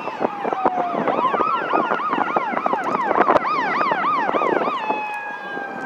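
Emergency vehicle siren: a slowly falling wail that switches about a second in to a fast repeated up-and-down yelp, then goes back to a steady falling tone near the end. Sharp firework bangs and crackles are scattered throughout.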